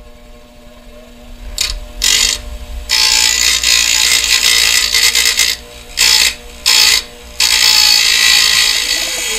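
A 6-inch Central Machinery bench grinder runs with a steady motor hum. From about a second and a half in, aluminum bar stock is pressed against the spinning wheel in about six passes, each a loud, harsh grinding hiss. The two longest passes come in the middle and near the end.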